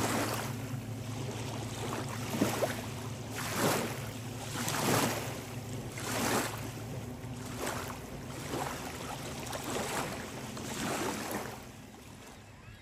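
Small lake waves lapping in repeated washes, one about every second or so, over a steady low hum. It gets quieter near the end.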